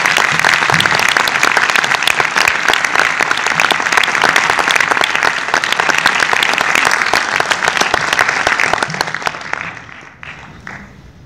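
Audience applauding a guest's arrival, dense clapping from many hands that dies away about nine to ten seconds in.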